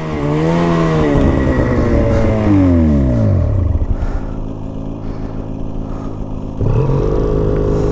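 Snowmobile engine running: its pitch rises and falls in the first second, drops away steeply about three seconds in, then steps up to a steady faster idle near the end.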